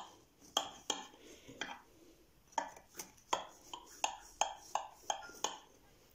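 A knife cutting through a baked cake in a square glass baking dish, the blade clicking and tapping against the glass in about a dozen quick, irregular strikes.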